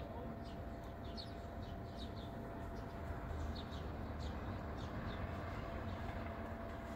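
Small birds chirping, short quick downward chirps repeated several times a second, over a steady low rumble of distant traffic.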